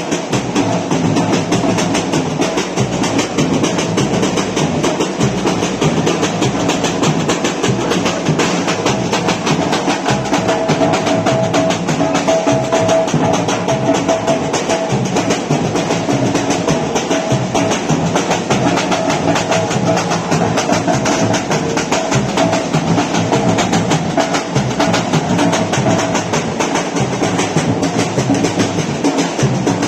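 Batucada samba percussion ensemble playing a dense, continuous drum rhythm with snare drums and bass drums.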